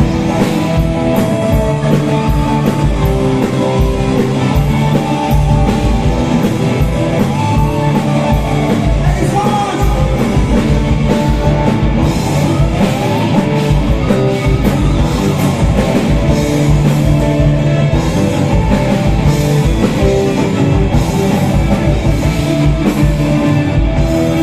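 Live rock band playing a song: drum kit, electric guitars, bass guitar and acoustic guitar together, loud and continuous.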